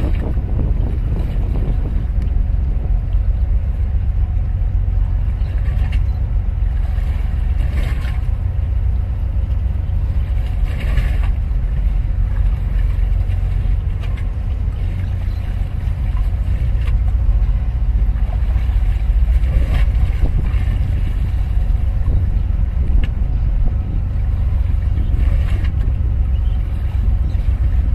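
Steady low rumble aboard a small motor boat out on the water, its engine running under the rush of water and wind, with short bursts of hiss every few seconds.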